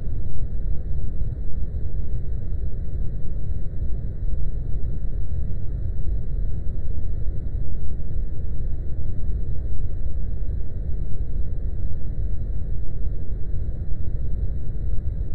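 A loud, steady low rumble that wavers constantly in level.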